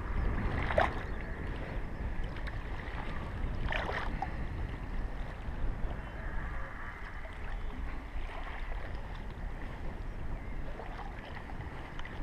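Steady wind rumble on the microphone over lapping lake water, with two sharp splashes in the first four seconds as a hooked northern pike thrashes at the surface while being landed by hand.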